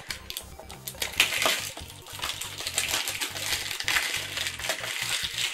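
Small cardboard blind boxes and their foil wrappers being handled and torn open: a dense run of crinkling, crackling and small clicks.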